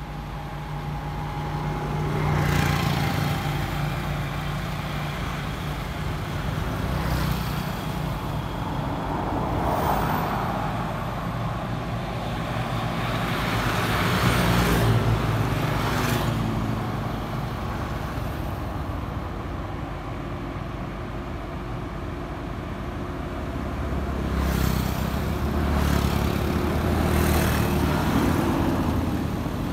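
Road traffic passing: engine hum and tyre noise swelling and fading several times as vehicles go by.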